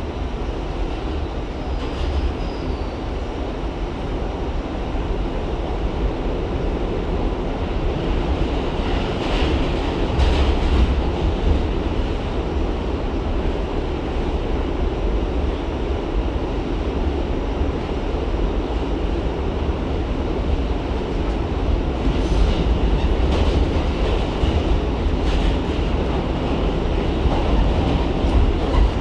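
R68 subway train running on the rails with a steady low rumble and wheel clatter. Faint high squeaks or screeches come in briefly about a third of the way in and again near the end.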